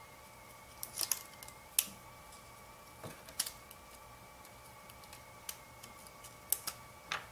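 Scattered clicks and light knocks as a pop-up headlight motor assembly is handled and turned over on a workbench, about ten irregular taps in all.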